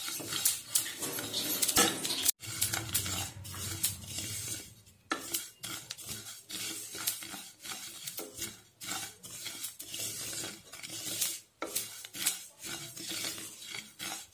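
Wooden spatula stirring sesame seeds as they dry-roast in a kadhai: quick, irregular scrapes against the pan with the rustle of the seeds being pushed around.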